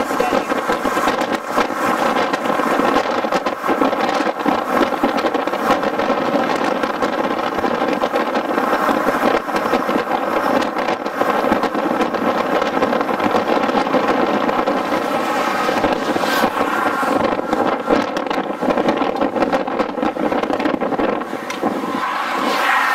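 Steady noise of a car driving at speed, with wind rushing over the microphone.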